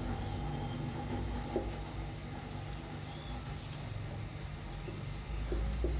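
Marker pen writing on a whiteboard, giving faint, scattered strokes over a steady low hum.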